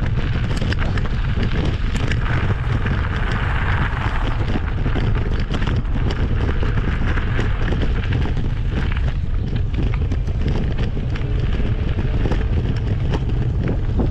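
Wind rumbling steadily on the microphone of a camera riding along on a bicycle, with the tyres crackling over a loose gravel track.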